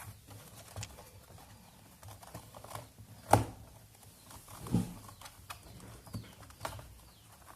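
Scattered plastic clicks and knocks from an HP 14-an031au laptop's bottom case being worked loose from the body, with a sharp click about three and a half seconds in and another near five seconds.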